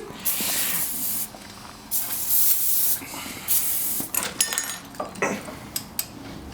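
Aerosol can sprayed in three hissing bursts, the first two about a second long and the third shorter, followed by a few light clicks.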